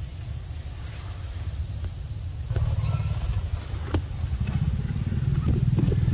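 Forest insects droning steadily at two high pitches, over a low rumble that grows louder about halfway through, with a few faint clicks.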